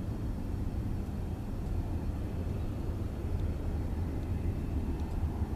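Steady low rumble of a distant Boeing 757-200's jet engines as it climbs out after takeoff.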